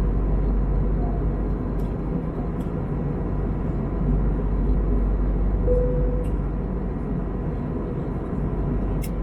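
Steady cabin noise of an Airbus A321neo in flight: engine and airflow noise heard from inside the passenger cabin as an even, deep rumble with a rushing hiss above it.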